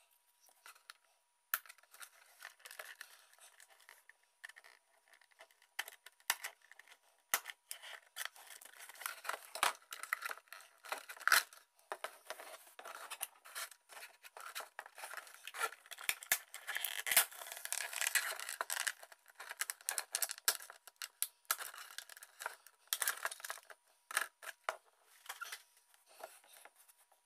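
Scissors snipping the ties that hold a toy figure in its box, amid the tearing and rustling of cardboard and plastic packaging: a long, irregular run of sharp clicks and scrapes.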